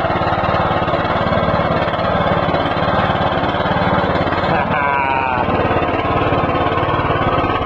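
Riding lawn mower's small engine running steadily as the mower creeps along in first gear.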